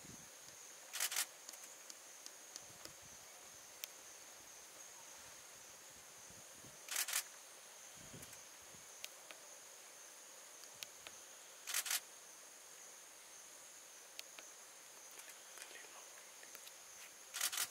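Forest insect chorus: a steady, high-pitched drone from crickets or similar insects, broken four times by a short, louder, noisy buzz, about every five seconds.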